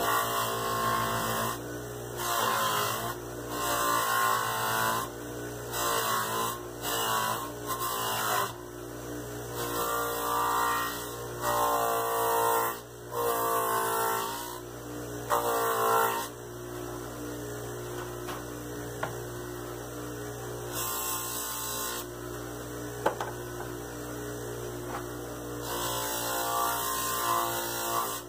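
Bench buffer's electric motor running with a steady hum while a dyed leather sheath is polished against its buffing wheel with brown tripoli compound. In the first half the sound repeatedly swells and shifts in tone, then settles to an even hum.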